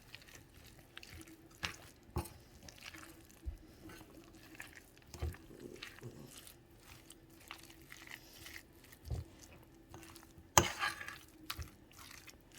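Shredded chicken and sour cream mixture being stirred in a bowl: soft wet squishing with light scrapes and clicks against the bowl, and a sharper knock about ten and a half seconds in.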